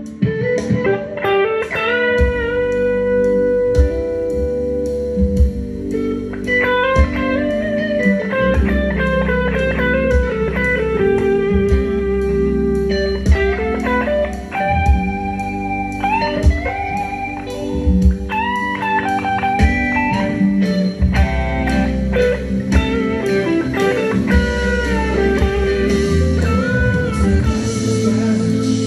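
Electric guitar fitted with McL Guitars v2 clone pickups, played in a bluesy lead style: sustained notes with string bends and slides, over a steady low accompaniment.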